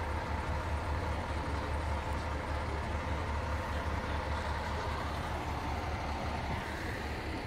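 Fire trucks' diesel engines idling, a steady low rumble that holds level throughout.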